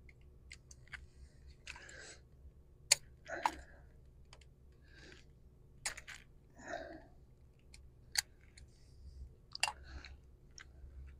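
Hands working on engine wiring: a few sharp clicks and short scraping rustles as a cable end and a small hand tool are handled.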